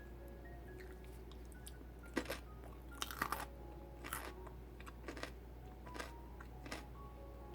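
Raw celery stalk being bitten and chewed: crisp crunches at irregular intervals, with the loudest cluster about three seconds in.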